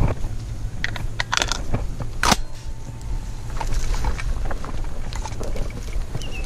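Wind rumbling on the camera microphone, with reed and cattail stems brushing and clicking against the camera. A sharp crack about two seconds in is the loudest sound.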